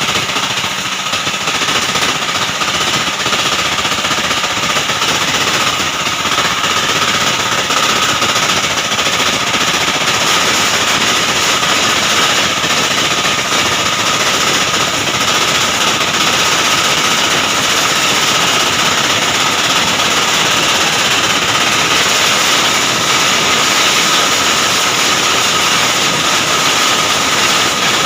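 Stone crusher machine running: a continuous fast rattling clatter with a steady whine over it.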